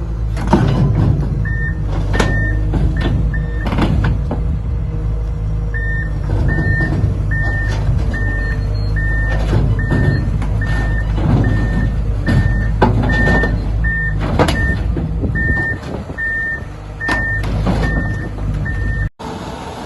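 Heavy machine's diesel engine running with a warning alarm beeping steadily, about three beeps every two seconds. Sharp metal clanks and knocks sound now and then.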